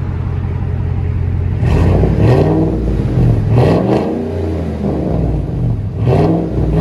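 Ford F-150 5.0L Coyote V8 exhausting through straight-piped dual tailpipes with no mufflers, fed by the factory converters and a Y-pipe. It idles steadily, then is revved in several short blips from about two seconds in, each rising and falling in pitch.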